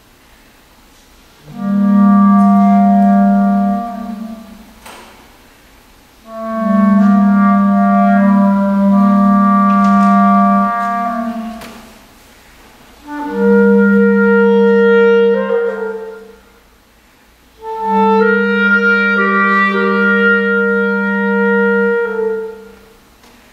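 Solo clarinet playing four long, low sustained phrases, each a second or two apart and trailing off into the hall's reverberation between them.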